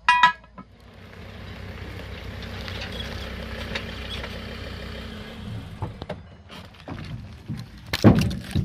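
A motor vehicle's engine running steadily, swelling and then fading over a few seconds. Then a series of knocks and a loud thud near the end as firewood is handled on the back of a ute.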